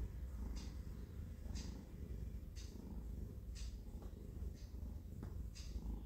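Domestic cat purring steadily, with a short, soft rasp about once a second.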